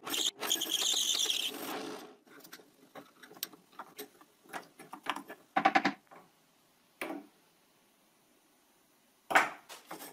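Bi-metal hole saw in a small, low-power benchtop drill press cutting through plywood for about two seconds, then stopping. Scattered light wooden clicks and knocks follow as a cut plywood circle is handled, with a sharper knock near the end.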